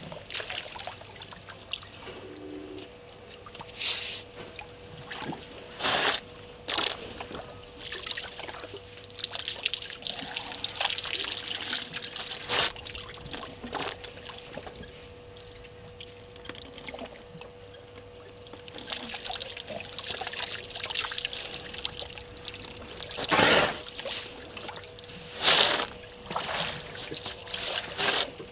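African elephants drinking: water trickling and splashing as trunks draw it up and squirt it into their mouths, in irregular splashes with a few louder ones.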